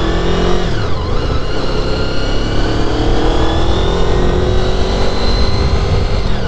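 Honda VFR800fi V4 engine accelerating under way. Its pitch dips briefly about a second in at a gear change, then climbs steadily for several seconds, over heavy wind noise.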